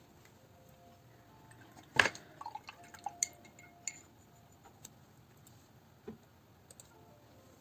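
Paintbrush knocking against a glass water jar while being rinsed between colours: one sharp ringing clink about two seconds in, then several lighter clinks and taps.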